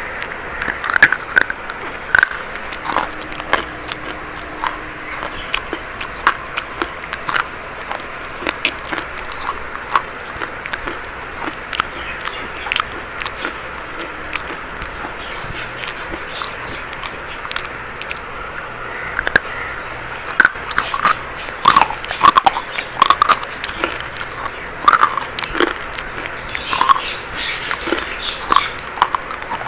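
Dry chalk being bitten and crunched: many sharp, irregular crunches over a steady hiss, coming thicker and louder in the second half.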